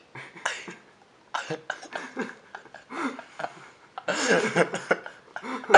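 Short, broken vocal noises from a person, such as coughs and laughs, with gaps between them. The longest and loudest burst comes about four seconds in.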